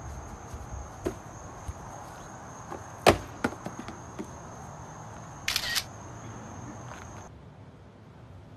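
Outdoor ambience with a steady high insect drone, broken by a few sharp clicks and a short noisy burst about five and a half seconds in; the drone stops near the end.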